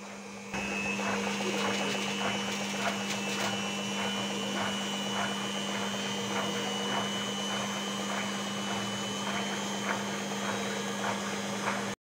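Panasonic front-loading washing machine running with its drum turning: a steady motor hum with a thin high whine and faint ticks about twice a second, starting about half a second in.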